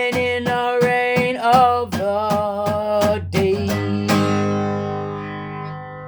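Acoustic guitar strummed under a held, wavering sung note that ends the song. A final strum a little over four seconds in lets the last chord ring out and slowly fade.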